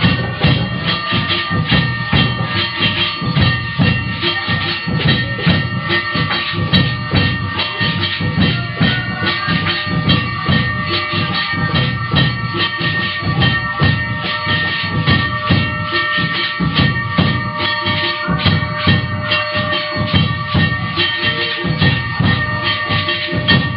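Music: a fast, steady drum rhythm with jingling percussion under several held, steady tones.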